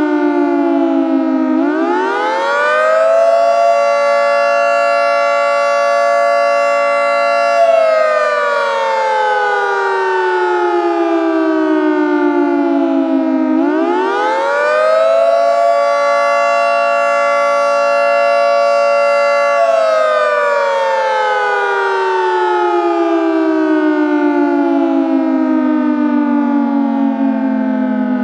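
Synthesized Federal Signal 2T22 dual-tone mechanical siren winding up twice. Each time the pitch rises over about two seconds in a smooth curve that eases into a steady pitch, holds for about four seconds, then winds down slowly. The windup follows a sine curve, close to the typical windup of the 3-phase induction motor in older mechanical sirens.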